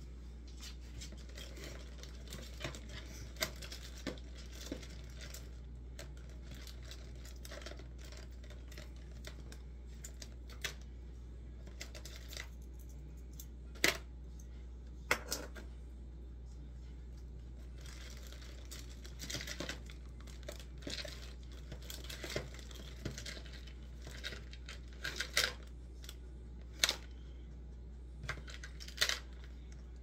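Paintbrush dabbing and scraping on a small canvas propped on an easel: scattered soft taps and scratches, with a few louder clicks, over a steady low hum.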